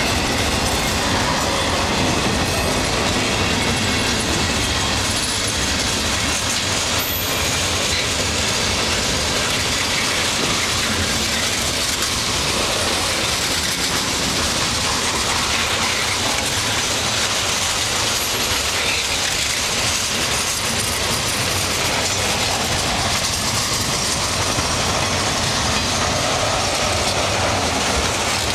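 Freight cars of a long mixed freight train rolling past: a steady rumble and clatter of steel wheels on the rails, as boxcars give way to tank cars.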